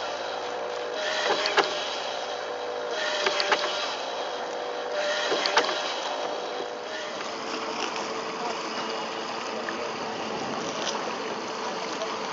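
Radio-controlled model rowing boat's oars pulling in a slow stroke, a click and a splash about every two seconds. The strokes stop about seven seconds in.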